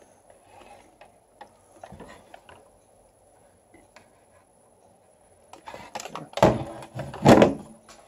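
Plastic BB-8 toy parts handled at a table: scattered light clicks and rustles, then two loud knocks about a second apart near the end as parts are set down on the tabletop.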